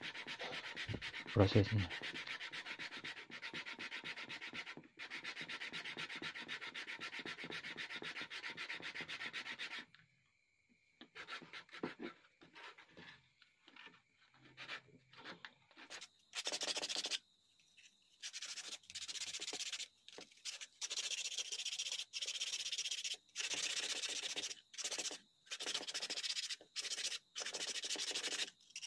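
A piece of sheep horn is sanded by hand on coarse sandpaper with back-and-forth scraping strokes. For about ten seconds the strokes are fast and continuous. After a short pause they come as separate strokes, sparse at first and then louder and more regular.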